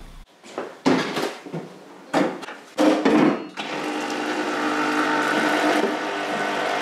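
Cast motorcycle fork yokes clunking and clattering as they are handled and set down in a parts-washer tank. About three and a half seconds in, the parts washer's electric pump starts and runs with a steady hum, solvent splashing from the brush hose.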